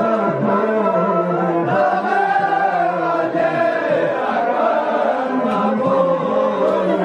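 Men's voices chanting a Farsi noha, a Shia mourning lament, in a continuous sung melody.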